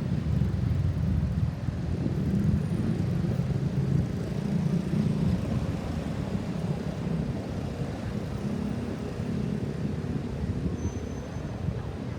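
Steady low rumble of road traffic: vehicle engines and tyres going by, with no siren sounding.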